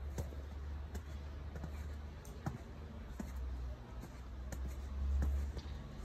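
Footsteps crunching in snow, one irregular step roughly every second, over a steady low rumble that swells about five seconds in.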